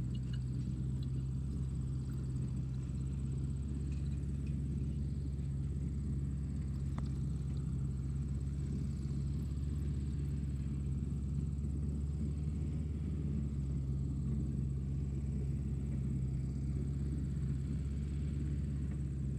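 Tractor engine running steadily, a low unchanging drone.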